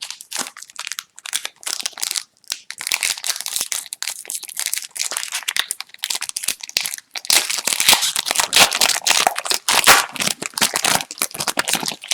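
Crinkling and tearing of a foil trading-card pack wrapper being opened and crumpled, with cards handled in between; the crackling is heaviest in the second half.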